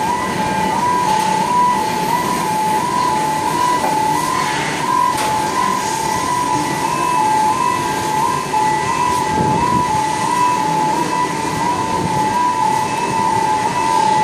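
Two-tone warning alarm of a goliath gantry crane during a lift, switching steadily between a high and a slightly lower tone about three times a second, over steady shipyard background noise.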